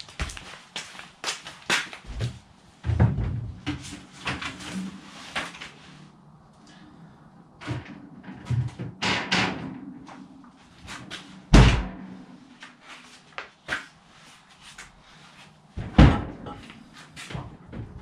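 Things being handled and set down by hand: a run of knocks and clatter, with two heavy slams, one about two-thirds of the way through and one near the end.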